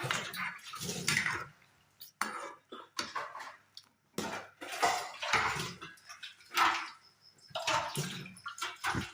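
Metal spoon or ladle working in a pot of hot jaggery drink (aati): a series of irregular clinks and scrapes against the pot, with the liquid sloshing.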